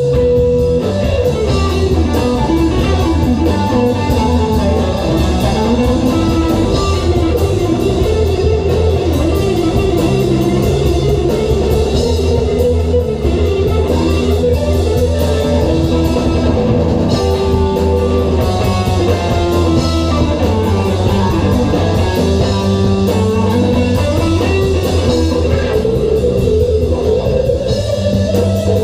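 Live rock band playing an instrumental passage: electric guitar lead with notes that bend and slide, over bass and a drum kit.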